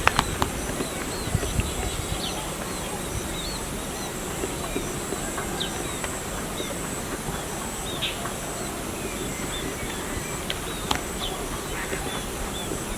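Small birds chirping, with many short repeated notes overlapping. A few sharp clicks stand out, one right at the start and one about eleven seconds in.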